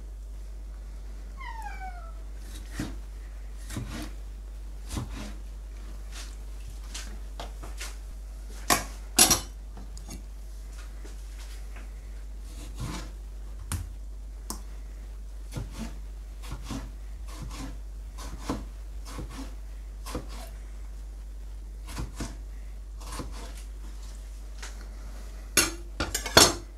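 Nakiri kitchen knife cutting tomatoes on a plastic cutting board: irregular light knocks of the blade meeting the board, with a few louder clatters, two around nine seconds in and two near the end as a knife is laid down on the counter. A cat meows once, briefly, near the start, a short falling cry.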